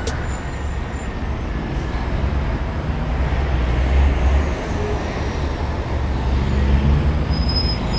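Street traffic noise: a steady low rumble of passing vehicles that swells about halfway through and again near the end. A faint, high, steady squeal starts near the end.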